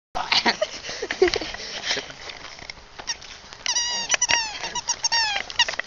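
A dog making a quick run of short, high-pitched squeaky cries, each dropping in pitch, starting a little past halfway. Before them come a few seconds of rustling and clicking.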